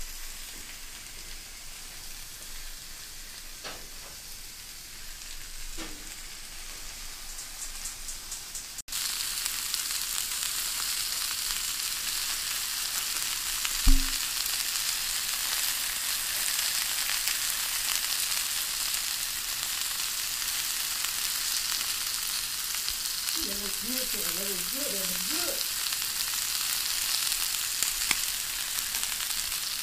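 Marinated pork chops sizzling on a hot electric grill plate, a steady hiss that gets louder about a third of the way in. A single knock about halfway.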